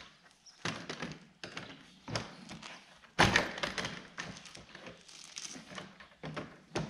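Large adjustable wrench knocking and clicking against a pipe fitting and valve as the fitting is tightened into the valve: a series of irregular taps and thunks, the loudest a little past three seconds in.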